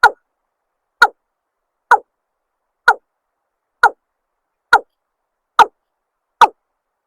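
Eight short calls, one a little under every second, each sliding down in pitch. They come from a looped gà đồng lure recording.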